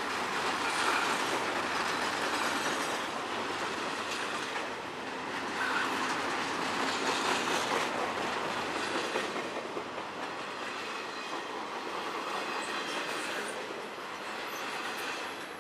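Double-stack intermodal freight train passing close by: the steady rolling noise of the well cars' steel wheels on the rails, swelling and easing as the cars go by.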